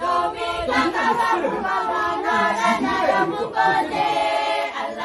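Choir singing, several voices together, with a long held note about four seconds in.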